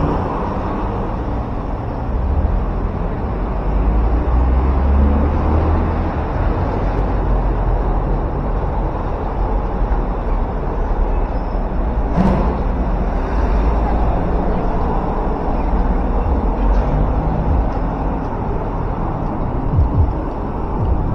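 City street ambience: a steady rumble of traffic with a single sharp knock about twelve seconds in.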